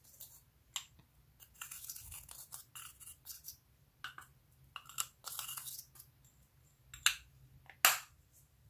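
Pressed eyeshadow being scraped and crumbled out of a clear plastic compact with a small tool, in short irregular scratchy, crunchy strokes. Two sharp clicks near the end are the loudest sounds.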